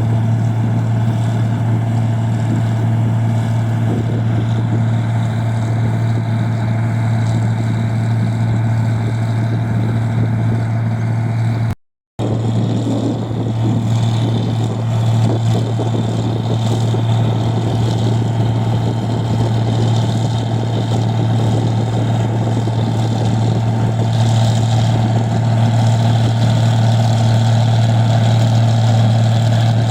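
Engine of a rice milling machine running steadily, a deep unchanging drone; the sound cuts out for a split second about twelve seconds in, then resumes.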